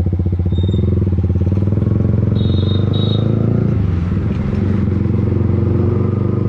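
Yamaha MT-15's single-cylinder engine running through an Akrapovic exhaust with its dB killer removed, ridden at low, steady speed with an even exhaust pulse. The engine note dips briefly about four seconds in.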